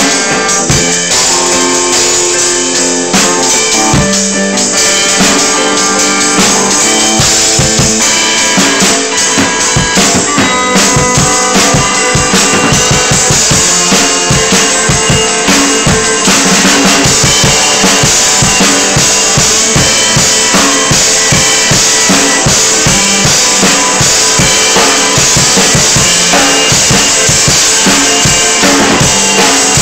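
A drum kit played loud and fast, with rapid bass drum and snare hits and crashing cymbals, together with an electric guitar. The guitar stands out most in the first several seconds; in the second half the cymbals grow louder and the drums dominate.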